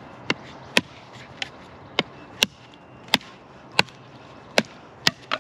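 Schnitzel TRI fixed-blade outdoor knife chopping into wood: about ten sharp strikes, roughly two a second. The blade is biting well.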